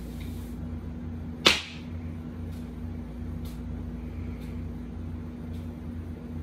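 A single sharp snap about a second and a half in, over a steady low hum, with faint ticks about once a second.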